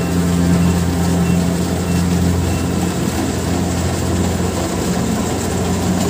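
Kubota DC70 Plus rice combine harvester's diesel engine running steadily at working speed while harvesting, a constant low hum with the machine's threshing noise.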